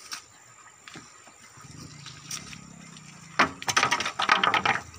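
Wooden bullock cart getting under way: a low hum, then a loud burst of rattling and knocking a little over three seconds in.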